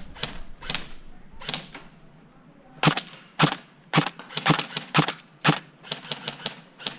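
Airsoft guns firing: sharp pops spaced out at first, then coming faster in quick runs over the last few seconds.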